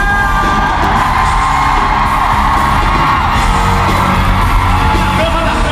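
Live pop music, loud: a singer holds one long note over a band with drums and bass.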